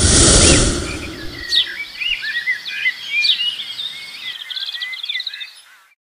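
Intro sound effect: a loud, low rumbling whoosh in the first second, then a jungle soundscape of many birds chirping and whistling over a steady hiss, fading out near the end.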